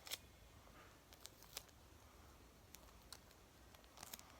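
Near silence with a few faint, scattered clicks: paper and sticky tape being handled and pressed down while a paper squishy is taped up.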